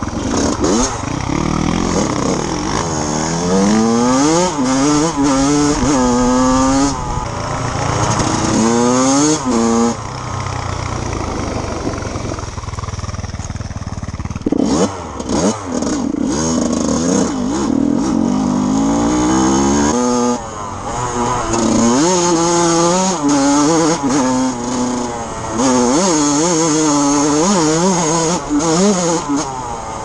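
Yamaha YZ 125 two-stroke dirt bike engine revving up and down while riding, its pitch climbing repeatedly through the gears. Near the middle it settles back to a low idle for a few seconds, dropping briefly, which the rider puts down to the idle being set low.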